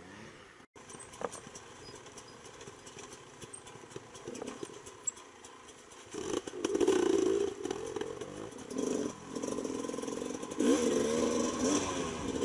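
Beta 300RR's single-cylinder two-stroke engine, quiet with light clatter at first, then revving in surges from about six seconds in as the bike rides the trail.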